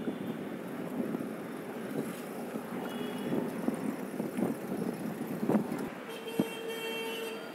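Busy street traffic, with motorbike and autorickshaw engines running close by and scattered knocks. A vehicle horn sounds steadily for about a second near the end.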